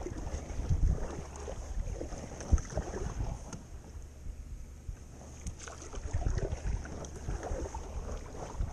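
Kayak paddle strokes, the blades dipping and splashing in calm water, with wind buffeting the microphone. There is a sharp knock about two and a half seconds in and a brief lull in the strokes near the middle.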